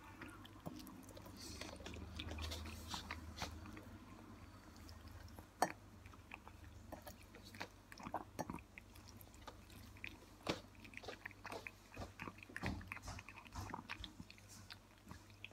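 Domestic cat eating wet food from a bowl: quick, irregular wet chewing and smacking clicks, with one louder click about five and a half seconds in.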